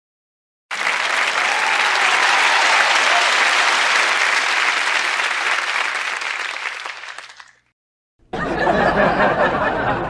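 Applause sound effect: a crowd clapping that starts abruptly and fades out after about seven seconds. About eight seconds in, a second, shorter and more muffled crowd sound effect begins.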